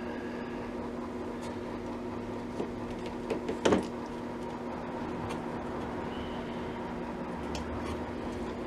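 Light clicks and one sharp clunk about three and a half seconds in, from parts being handled on a workbench, over a steady electrical hum.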